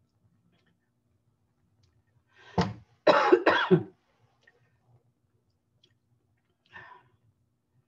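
A woman coughing: one cough about two and a half seconds in, two louder ones in quick succession just after three seconds, and a fainter cough near the end.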